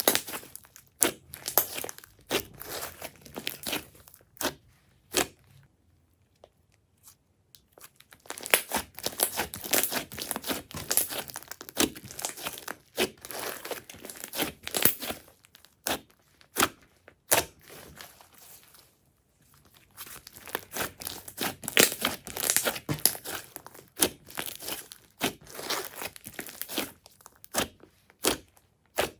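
Glossy slime being squished and stretched by hand, making dense runs of sticky clicks and pops, with a couple of short pauses.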